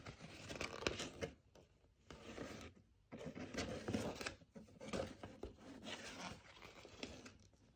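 Pages of a glossy paper brochure being turned and handled: faint, intermittent rustling and scraping of paper, with two brief pauses.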